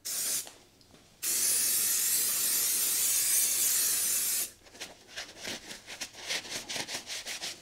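Aerosol cleaner sprayed onto a motorcycle engine's crankcase: a short burst, then a steady hiss lasting about three seconds. Then the casing is scrubbed with a brush in quick strokes, about four or five a second.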